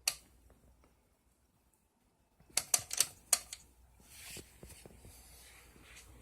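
A single sharp click, a moment of near silence, then a quick cluster of about five sharp clicks and knocks, followed by a soft rustle.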